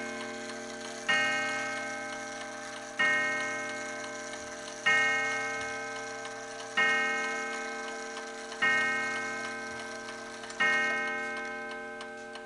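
Antique E. Ingraham Wizard eight-day mantel clock striking the hour, at ten o'clock. Six slow, even blows about two seconds apart each ring out and fade gradually, and the light ticking of the movement comes through as the last ring dies away.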